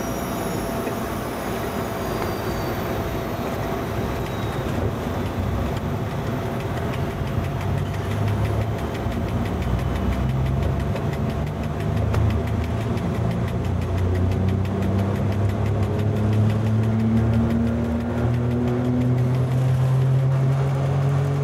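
FS E.656 electric locomotive heard from its cab, pulling away from a station stop: the traction motors' hum rises slowly in pitch as the train gathers speed, over a steady whine and running noise that grow louder from about halfway.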